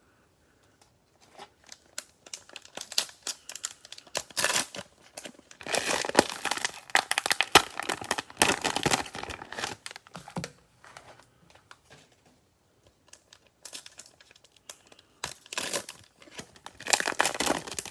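Cellophane wrapper of a Mosaic football cello pack being torn open and crinkled by hand: irregular bouts of rustling and tearing, with a quiet pause of a couple of seconds past the middle.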